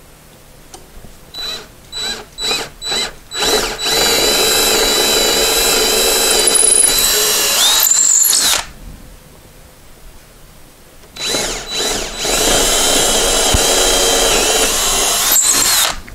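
Cordless drill with a twist bit boring two holes into a wooden stair step, for the bolts that will hold a newel post down. Each hole starts with a few short trigger pulses, then about four to five seconds of steady drilling that rises in pitch just before the drill stops. The second hole begins about three seconds after the first ends.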